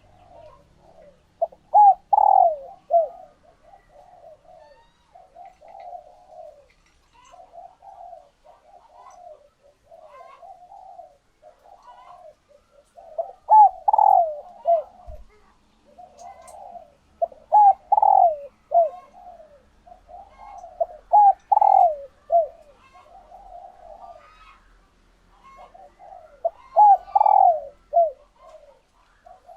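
Female spotted doves cooing, hens in egg-laying condition. Soft low coos run on throughout, broken by five louder phrases of several short coos.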